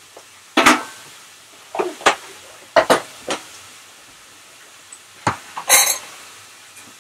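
Kitchen clatter: dishes, pans and utensils clinking and knocking in a string of sharp, uneven knocks, with a short hissing burst near the end.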